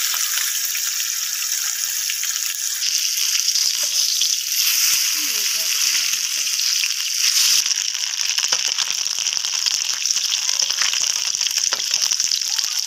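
Brinjal halves and turmeric-coated vegetable slices sizzling in hot oil in a frying pan, a steady hiss full of fine crackles. About seven and a half seconds in, the sizzle changes to turmeric-coated cubes frying as a spatula stirs them, with small clicks and scrapes.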